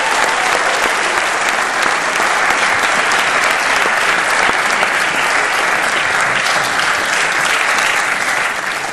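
A large audience applauding, a steady dense clapping that begins to ease off near the end.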